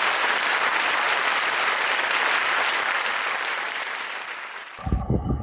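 Applause, a dense clapping that fades out near the end, where music with deep bass notes and bright plucked tones cuts in.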